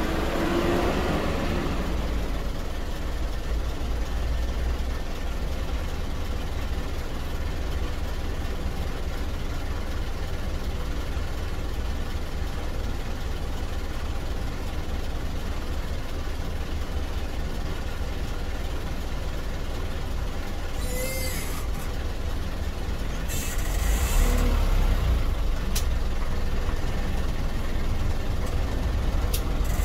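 Steady low rumble of bus and traffic engines, with a short squeal about two-thirds of the way in and a brake hiss soon after, the rumble getting louder near the end.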